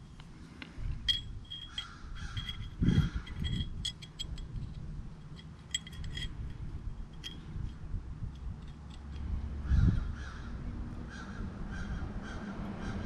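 Birds calling over and over in short repeated calls, with a few dull knocks and light clinks from metal engine parts being handled.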